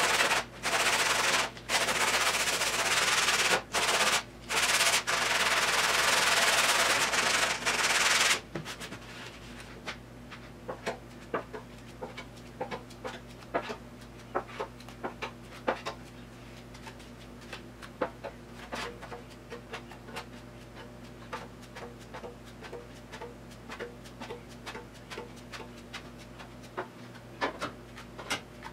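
Sandpaper on a long sanding block rubbing back and forth over the primed steel lip of a car's rear hatch: loud rasping strokes with brief pauses for about the first eight seconds. After that come much fainter short scrapes and scattered light clicks as smaller spots are sanded by hand.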